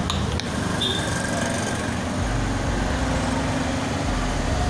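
Steady low rumbling background noise, like road traffic, with a couple of faint clicks near the start.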